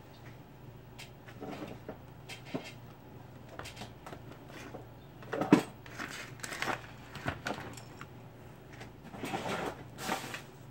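Scattered clicks, knocks and rustles of hands handling cables and parts on a repair bench. The loudest is a sharp knock about five and a half seconds in, over a steady low hum.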